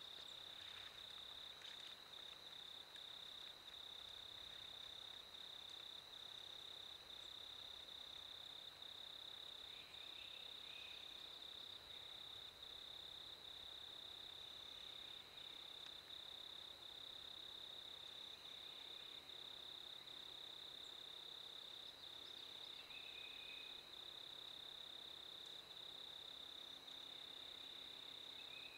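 An insect trilling steadily at one high pitch, with a slight regular pulse, over faint outdoor ambience; a few faint short calls come and go in the background.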